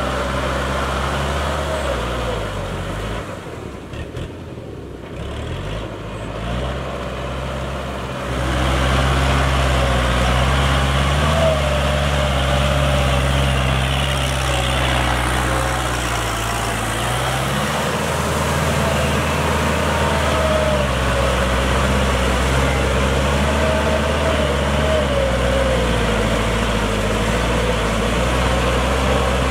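Kubota farm tractor's diesel engine running steadily under load as it pulls a rotary tiller through a flooded rice paddy. The engine sound drops for a few seconds near the start, then runs louder and steady from about eight seconds in.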